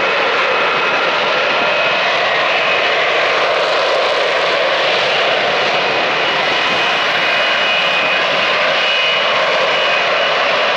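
F-35B Lightning II's single jet engine running as the jet flies low and slowly: a loud, steady jet noise with a faint high whine in it.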